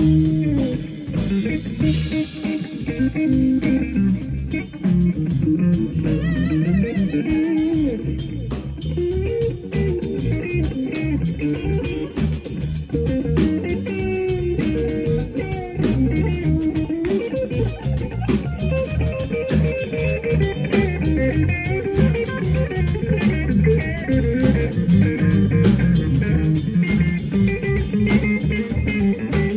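Live soul-blues band: a hollow-body electric guitar plays a lead line of bent, wavering notes over bass guitar and drums.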